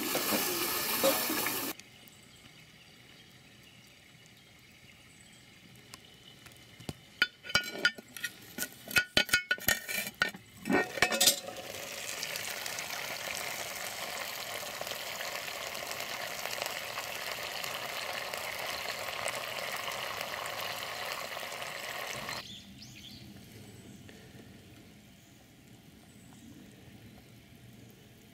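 A run of sharp metallic clinks and knocks, about seven to eleven seconds in, from the cast-iron Dutch oven and its lid being handled. Then a steady sizzle for about ten seconds from the whole roast chicken hot in the opened pot.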